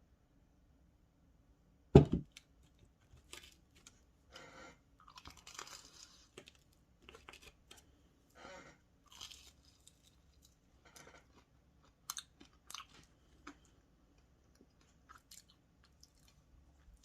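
A person biting into and chewing crunchy food close to the microphone: one loud crisp bite about two seconds in, then irregular crunching and chewing.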